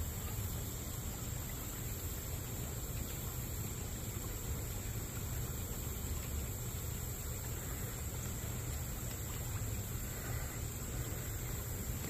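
Steady outdoor background: a constant high insect drone over a low rumble, with no splashes or other distinct events.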